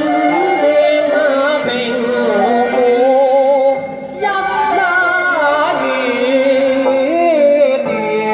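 Music with a sung melody that waves and bends in pitch, played back on a Jensen JTA-230 stereo turntable. The music briefly drops off about four seconds in.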